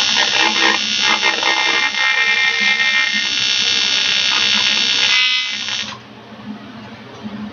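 AC TIG welding arc on thick 6061 aluminum from an Eastwood TIG 200 AC/DC, buzzing loudly and steadily, then stopping about six seconds in when the arc is broken.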